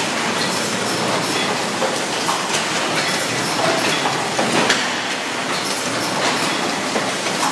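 ST036B automatic case-making machine running in production: a steady mechanical clatter with many sharp clacks from its moving parts.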